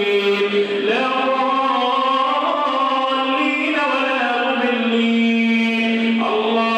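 A man's voice chanting a melodic Arabic supplication (du'a), holding long notes that move slowly between pitches, with one long steady note in the second half.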